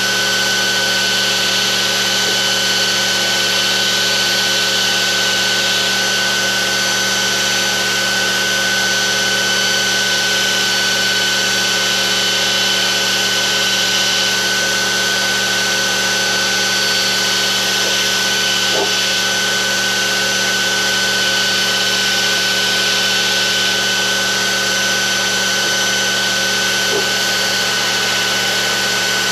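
Electric grinder running steadily with a constant high whine, grinding the forged mild-steel handle finials to their final shape.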